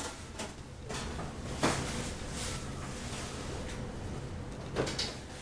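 Hands working in hair while pinning up curls: soft rustling and a few short clicks and knocks, over a steady low hum.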